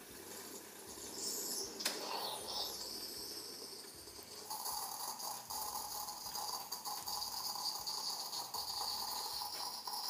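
Bosch Tassimo Joy capsule coffee machine brewing espresso from a T-disc: hissing and sputtering, with a steadier higher tone joining about halfway through as the brew nears its end.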